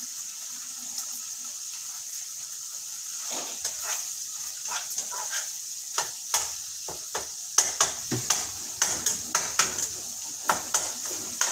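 Ground beef sizzling as it browns in a pan, with a utensil scraping and knocking against the pan as it is stirred. The knocks start a few seconds in and come thicker in the second half.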